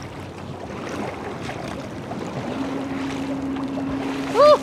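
Lake water lapping and wind on the microphone around a sea kayak, with a steady low hum joining about halfway through. Near the end comes a short, loud cry as the kayak tips over.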